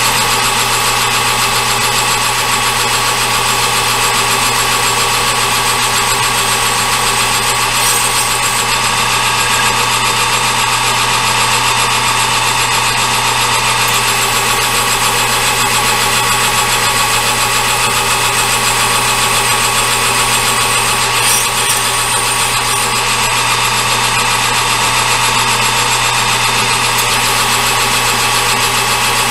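Metal lathe running steadily under power while turning down a metal billet: a constant motor and gear whine with several fixed tones over an even hiss.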